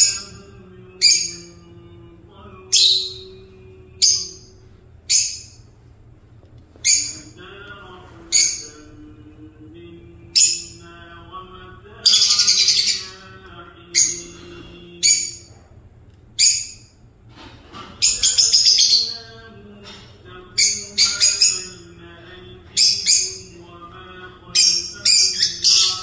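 Lovebirds giving short, sharp, high chirps about once a second, with two longer bursts of rapid chattering about twelve and eighteen seconds in.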